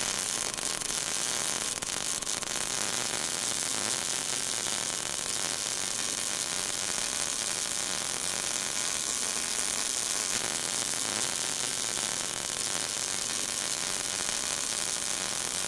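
Steady, even sizzling hiss of a welding-arc sound effect, unbroken throughout.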